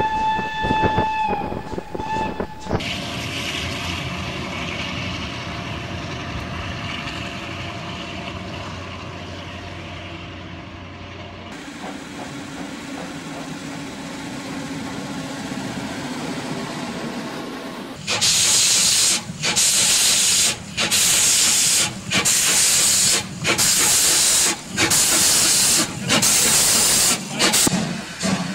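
Steam locomotive: a short steam whistle blast at the start, then a steady rushing noise, then loud, even exhaust blasts of steam about once a second, the locomotive working hard.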